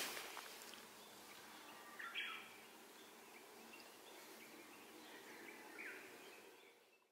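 Faint outdoor ambience with a few short bird calls, fading out near the end.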